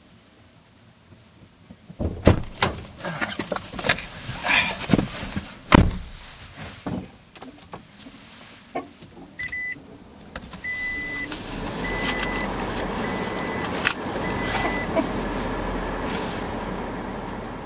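Car interior sounds: scattered clunks and knocks, then a warning chime beeping about once a second, six times in all, as a steady low engine hum comes up and keeps running.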